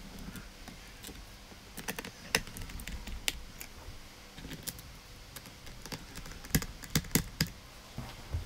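Scattered sharp clicks and taps of a screwdriver and small screws against the plastic bottom cover of an Asus ROG G513Q laptop as its screws are refitted, with a quick run of louder clicks near the end.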